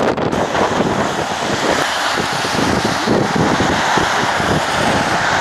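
Hurricane Sandy's strong wind buffeting the microphone in uneven gusts, with storm surf breaking against a seawall underneath.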